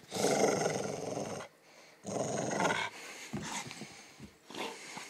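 Pit bull growling: a long, rough growl of about a second and a half, a shorter one about two seconds in, then a few short, fainter growls near the end.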